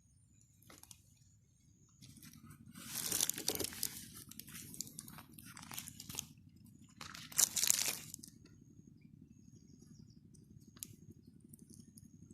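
Close crunching and crinkling handling noises, loudest in two spells about three and seven and a half seconds in.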